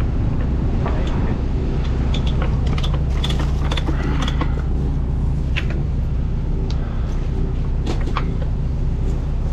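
A heavy-equipment engine running steadily at idle, with scattered short clinks and knocks of tools and hardware being handled.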